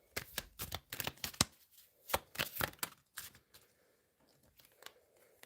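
A deck of cards being shuffled by hand: a quick run of crisp snaps and flicks for about three and a half seconds, then a few soft taps as the shuffling stops.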